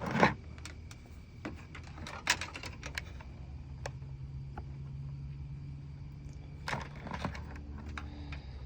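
Scattered clicks and light taps from a multimeter and its probe leads being handled to test the battery voltage, with a sharp click right at the start, a quick cluster a couple of seconds in and a few more near the end, over a low steady hum.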